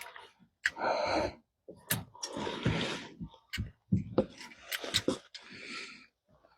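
A man breathing hard in irregular gasps and grunts while straining at work, with a few sharp clicks in between.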